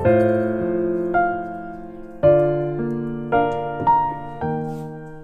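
Background piano music: slow notes and chords struck every half second to a second, each fading away.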